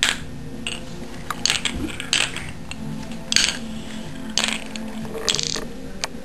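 Marbles rolling and clattering down a homemade marble run: a string of sharp clicks and short rattles, about one every half second to a second.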